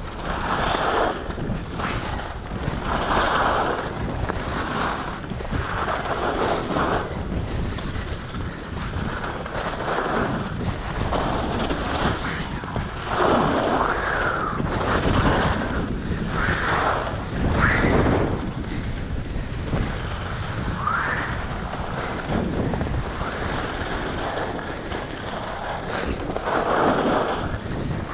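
Skis running fast down a groomed slope, with wind rushing over a chest-mounted action camera's microphone. The skis' edges scrape the snow, swelling and fading every couple of seconds as the skier turns.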